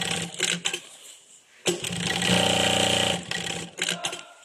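Direct-drive long-arm walking-foot industrial sewing machine stitching in one short run of about a second and a half, starting and stopping abruptly. A few clicks of the mechanism come just before and after the run.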